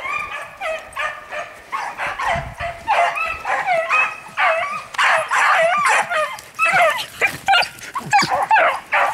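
A pack of beagles baying on a hare's scent trail, many overlapping voices giving tongue as they run the track. The chorus grows louder from about three seconds in as the hounds close in.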